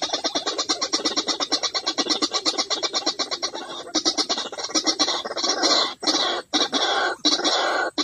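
White-breasted waterhen calls: a fast, even run of repeated notes that changes about four seconds in to longer, harsher phrases broken by short gaps.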